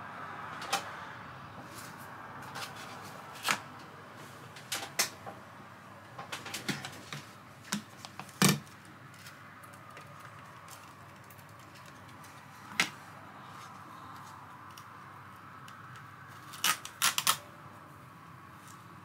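Hard plastic clicks and knocks of a Bosch battery charger being handled, fitted with adhesive hook-and-loop strips and set down on an MDF base. About a dozen sharp taps come at uneven intervals, the loudest about eight and a half seconds in and a quick run of three near the end.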